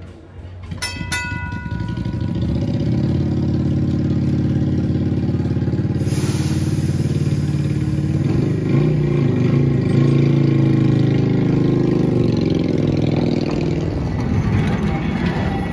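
Electric trolley car No. 832 getting under way and rolling up close. A single gong ding comes about a second in, then a steady low motor hum that grows louder and holds, with a sudden hiss about six seconds in.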